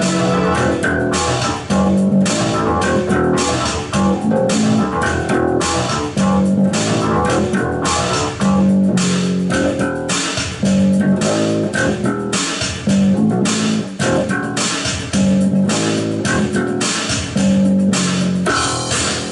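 Electric bass guitar playing a repeating riff in a piece of music with a steady beat, the same phrase coming round about every two seconds.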